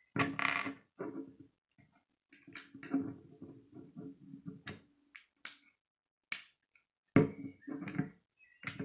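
Plastic Lego bricks being pressed and snapped together by hand, giving several separate sharp clicks. A child's voice murmurs softly at times in between.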